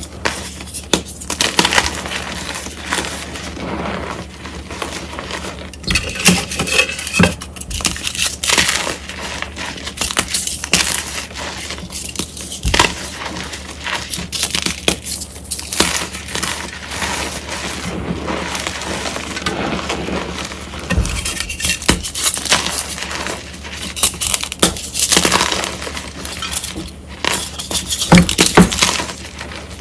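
Reformed gym chalk hearts, pink and white, crunching and crumbling as bare hands squeeze and snap them apart into loose chalk powder: a dense, irregular crackling with sharp snaps.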